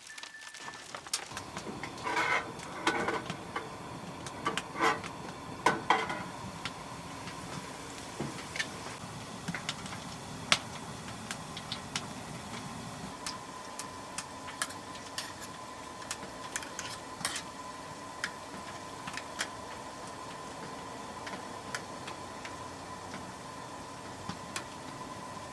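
Scattered sharp ticks and pops from a wood-burning stove, with a few metallic clinks in the first few seconds and a faint steady high tone from about six seconds in.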